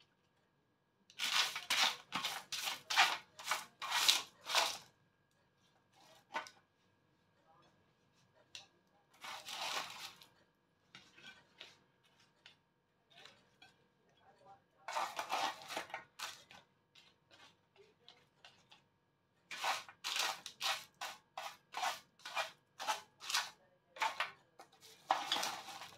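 Kitchen utensils scraping and clinking against cookware in several bursts of quick strokes, with short quiet pauses between them.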